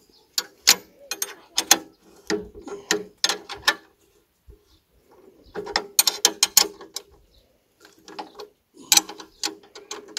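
Ratchet wrench clicking in short runs with pauses between them as it works the mounting bolt of the hiller on a walk-behind tractor.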